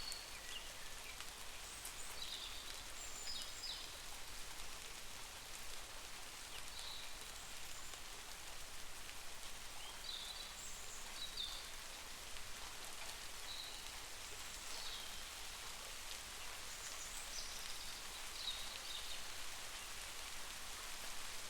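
Steady rain falling, an even hiss, with a scattering of short high chirps on top of it.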